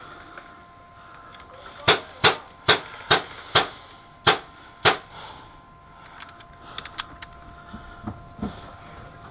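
M4-style airsoft rifle firing seven single shots in quick succession, each a sharp snap about half a second apart. A few fainter shots follow near the end.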